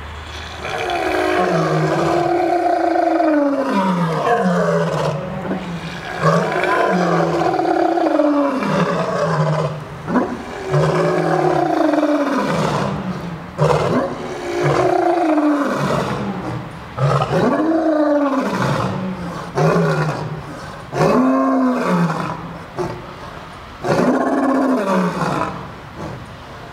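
A male lion roaring, a series of about seven roars that each swell and fall in pitch; the first three are long, the later ones shorter and more spaced out.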